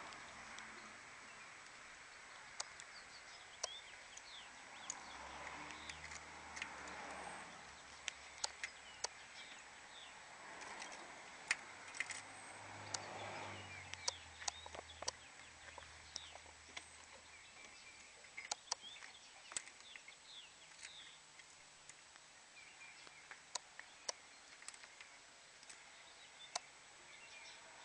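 Quiet outdoor ambience with birds chirping and many sharp clicks and taps close by. A faint low hum comes in a few seconds in and fades about halfway through.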